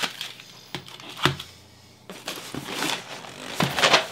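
Grocery packaging being handled: a few sharp knocks, the loudest about a second in, as items are set down, then rustling of cardboard and wrapping as a cereal carton is lifted out.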